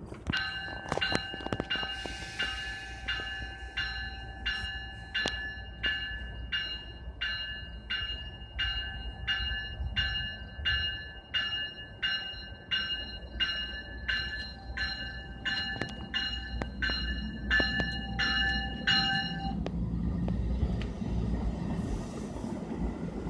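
Railroad grade-crossing warning bell ringing in a steady rhythm of about two strokes a second, over the low rumble of a train. The bell stops suddenly about three-quarters of the way through, and the low rumble carries on and swells.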